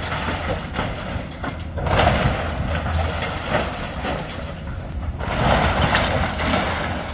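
Cracking and crashing of wooden grain-elevator timbers breaking and falling, in spells: loudest about two seconds in and again from about five to six and a half seconds. Under it, a heavy machine's engine runs as a steady low hum.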